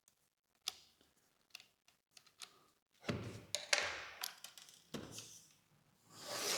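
Precision screwdriver and handling noise on a Sony A7R IV camera body as a small screw is backed out. There are a few light clicks in the first half, then longer scratchy scraping and rustling.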